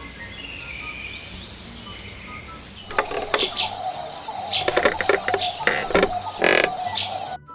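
Birds chirping over outdoor background noise. About three seconds in, the sound changes abruptly to louder, harsher animal calls and clatter.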